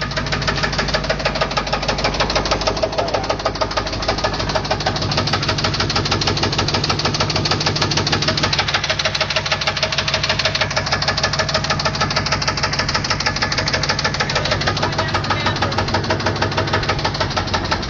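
Chevrolet 350 TPI small-block V8 running steadily with a fast, regular knock. The owner hears it on one side of the engine and calls it bad, cause unknown.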